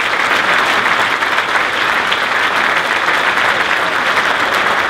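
Audience applauding steadily: many people clapping at the end of a speech.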